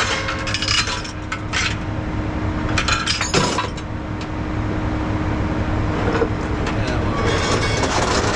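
Steel tie-down chains clinking and clattering as they are handled, over a truck's diesel engine idling steadily.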